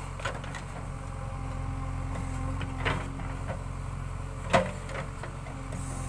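JCB 3DX backhoe loader's diesel engine running steadily while the backhoe arm digs. A couple of sharp knocks come through, the loudest about four and a half seconds in.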